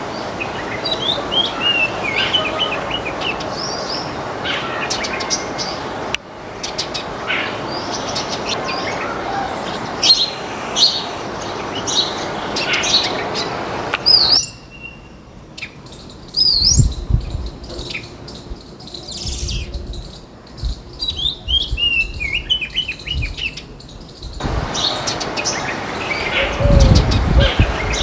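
A flock of small songbirds chirping and twittering continuously, with short rapid trills that fall in pitch. The background shifts abruptly several times, and in the second half bursts of low rumble come and go, strongest near the end.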